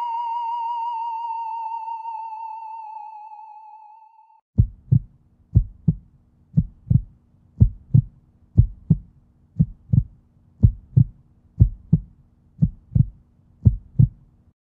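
A single wavering electronic tone, fading out over the first four seconds or so; then a heartbeat sound effect, low double thumps (lub-dub) about once a second, ten in all.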